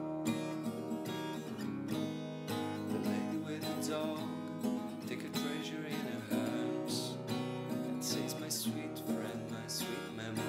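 Music: strummed acoustic guitar playing steadily.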